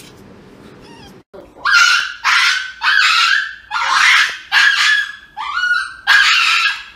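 Small dog yelping and screaming about seven times in quick succession, starting about a second and a half in, each cry loud and about half a second long, while held for an injection. The crying comes before the needle has gone in.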